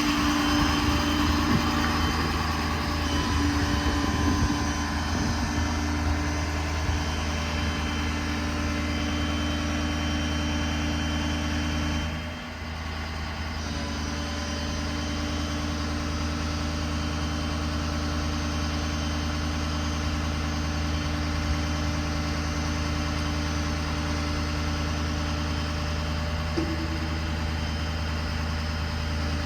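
Ford 6.7 Powerstroke V8 diesel in a heavy-duty truck idling steadily with a low hum. Its sound dips briefly about twelve seconds in.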